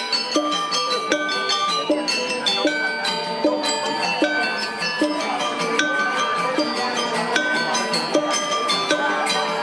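Balinese gamelan music: bronze metallophones and gongs playing fast interlocking struck figures over a steadily repeating melody.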